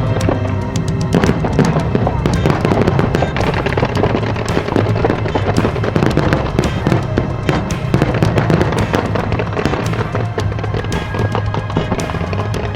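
Aerial fireworks going off in many rapid cracks and pops, layered over loud music with a steady low bass.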